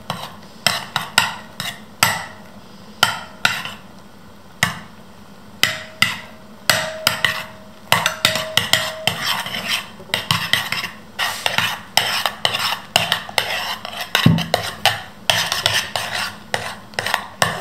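Metal spoon stirring shaving foam and glue in a ceramic bowl, with repeated scrapes and clicks against the bowl. The strokes are sparse at first, with a short lull, and come fast and dense through the second half.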